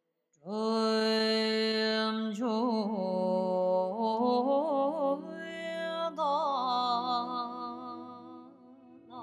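A solo voice singing a slow melody: a long held note starts about half a second in, then the line moves through phrases with quick, wavering turns in pitch.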